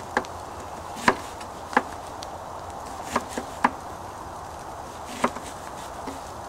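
Knife chopping cabbage on a plastic chopping board: about seven sharp knocks of the blade striking the board at uneven intervals.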